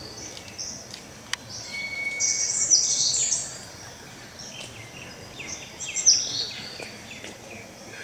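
Recorded bird calls played through a Bose FreeSpace 51 outdoor speaker hidden in the grass: many high, falling chirps and whistles, busiest about two to three and a half seconds in and again around six seconds in. A single sharp click about a second in.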